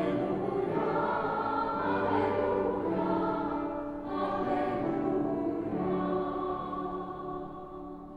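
Choir singing a slow sacred piece, likely the sung responsorial psalm of the funeral Mass, in two phrases with a short dip about four seconds in, fading near the end.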